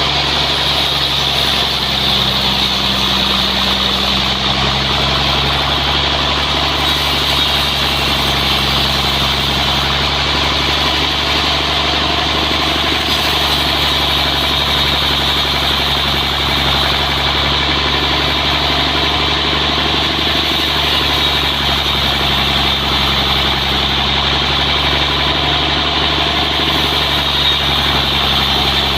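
Sawmill machinery running steadily: a constant engine hum with a steady high-pitched hiss over it, unchanging throughout.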